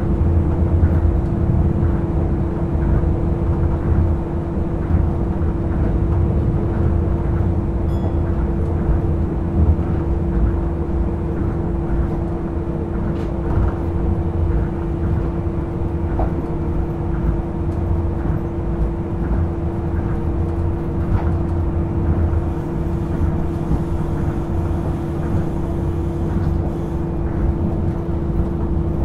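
Hitachi-built, resistor-controlled Tokyo Monorail Series 1000 car running at a steady pace, heard from inside the car: a steady low rumble with a steady hum on top.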